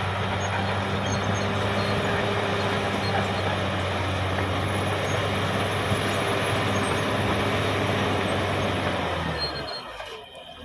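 Caterpillar D6R XL bulldozer's diesel engine running steadily under work, then dropping away briefly near the end.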